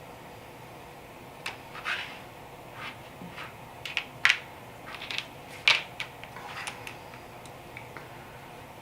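LEGO bricks clicking and clattering as pieces are handled and pressed together: a string of sharp, irregular clicks, loudest about four and five and a half seconds in.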